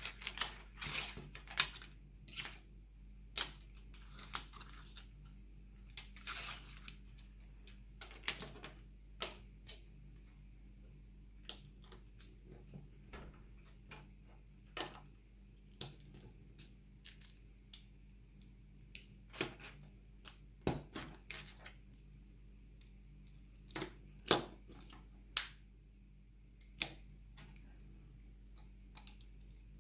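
LEGO plastic bricks clicking as they are handled and pressed together: irregular sharp clicks, some in quick clusters near the start and again a little past two-thirds of the way in, over a low steady hum.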